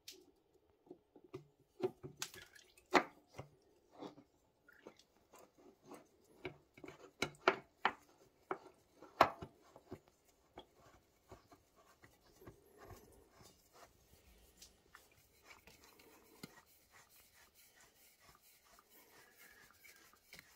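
Scattered sharp clicks and light knocks of parts and tools being handled, thickest in the first half and then fading to faint ticks.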